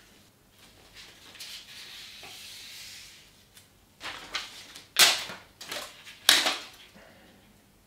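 Adhesive protective film being pulled taut and smoothed onto a bike frame's down tube with a squeegee. A soft rustling hiss is followed by three sharp swishing strokes about four, five and six seconds in.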